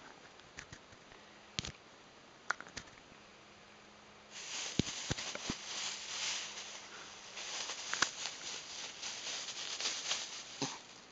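Plastic bag crinkling and rustling as a cat bats, bites and rolls on it: a few scattered crinkles at first, then from about four seconds in a dense, continuous rustling with a few dull knocks mixed in.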